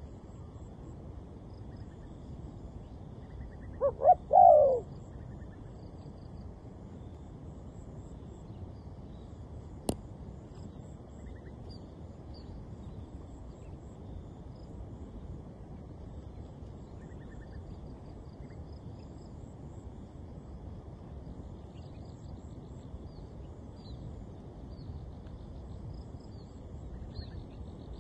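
A dove cooing once about four seconds in: a short phrase of two quick notes and a longer one. Faint high bird chirps sound through a steady outdoor background, and a single sharp click comes about ten seconds in.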